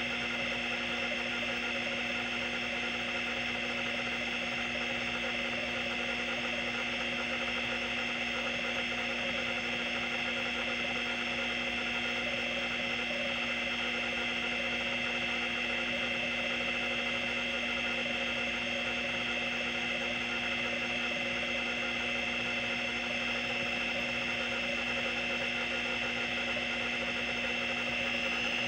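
Seagate ST-212 MFM hard drive running open, its platter spinning with a steady whine while the stepper-driven heads seek back and forth in a continuous busy mechanical buzz. The drive is damaged beyond storing data but still spins and seeks.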